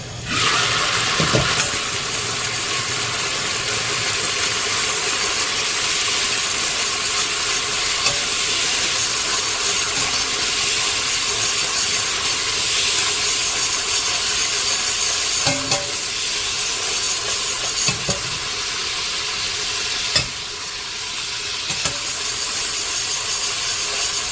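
Onions and tomatoes sizzling in hot oil in a cooking pot. The sizzle starts suddenly as they go in and holds steady, with a few knocks of a stirring spoon against the pot.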